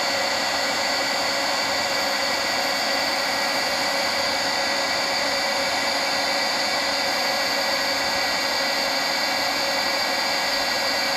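Milwaukee heat gun blowing continuously: a steady rush of hot air with a fan whine over it, shrinking solder-seal heat-shrink connectors on spliced wires.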